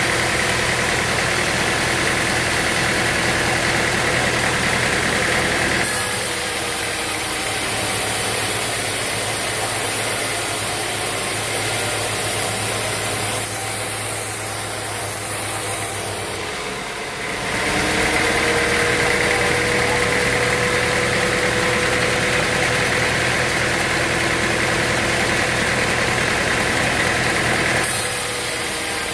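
Sawmill machinery running with a steady engine hum, and in places a high steady whine over it. The sound changes abruptly about six, seventeen and twenty-eight seconds in, as at cuts between shots.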